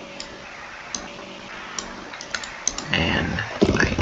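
Single sharp computer mouse clicks under a faint steady hum, then about three seconds in a louder run of quick keyboard typing.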